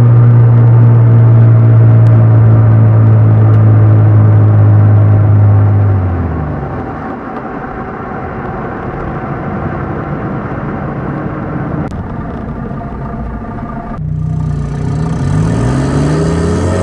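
Car exhaust with an electronic cutout valve, engine droning steadily at cruise, then dropping away about six seconds in to a quieter rumble of engine and road. Near the end the engine revs, its pitch rising and falling.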